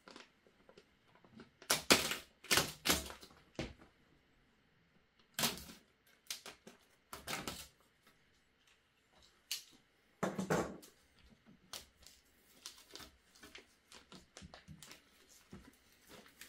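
Irregular knocks, clicks and scrapes of packing inserts being worked loose and handled inside a 3D printer's enclosure, loudest in a cluster about two seconds in.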